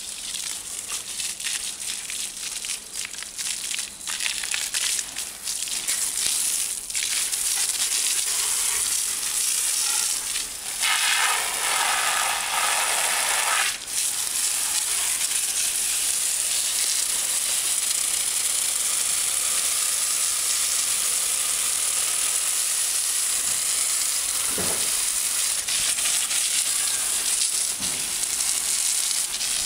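A jet of water spraying onto a folding bicycle's frame and wheels and the wet asphalt around it: a steady hissing spatter that grows stronger a few seconds in, louder and harsher for about three seconds around the middle.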